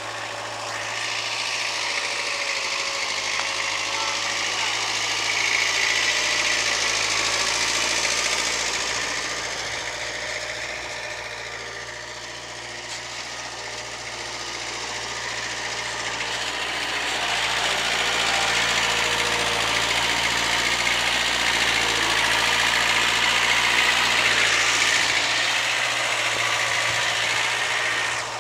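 Mini tractor engine running as it pulls a trailer loaded with bricks, with a steady low hum under a broad mechanical noise. It grows quieter about twelve seconds in, then louder again.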